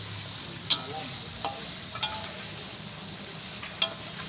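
Sautéing spice paste with bay leaves and lime leaves sizzling steadily in hot oil in a pan, stirred with a utensil that clicks sharply against the pan a few times.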